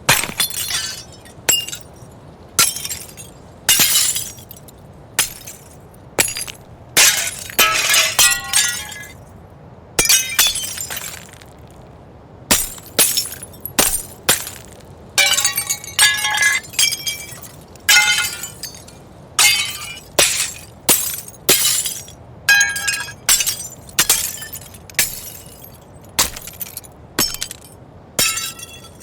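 A rapid series of window-pane glass breaks, about two dozen in all: each a sharp crack and shatter followed by tinkling shards falling, with short gaps between. A faint steady background ambience runs underneath.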